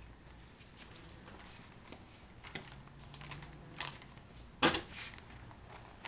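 Clear plastic bagging film being folded and smoothed by hand over a breather cloth on a workbench: a few light crinkles and taps, with one sharper click a little under five seconds in.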